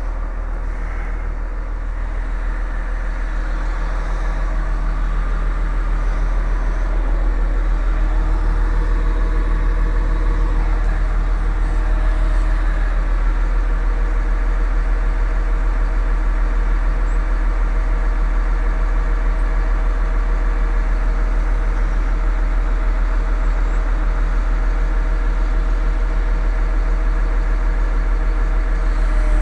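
An engine idling steadily with a deep, even rumble, getting a little louder over the first several seconds.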